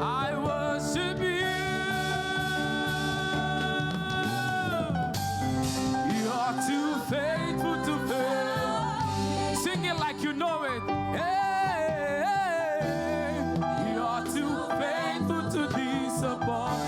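Gospel praise music: a singer holds one long note for about four seconds, then moves into a wavering, melismatic vocal line over steady instrumental backing.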